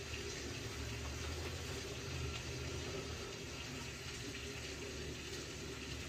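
Boiler circulator pump running steadily: a low hum with water rushing through the heating pipes, the zone calling for heat before the burner has lit.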